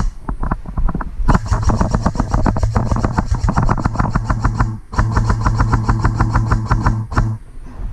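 Airsoft gun firing on full auto: a long burst of rapid, evenly spaced shots starting about a second in, a brief break, then a second burst of about two seconds.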